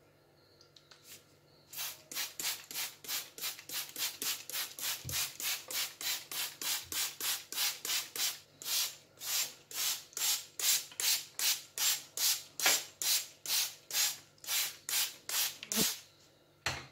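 Plastic trigger spray bottle squirting water onto a cotton cloth, dampening it. It is pumped quickly, about three short hissing sprays a second, in a long run that starts about two seconds in and stops near the end, with one last spray just after.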